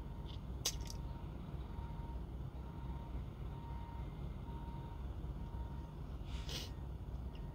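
Steady low rumble of an idling truck heard inside a sleeper cab, with a faint beep repeating on and off. A single click about a second in and a short sniff near the end.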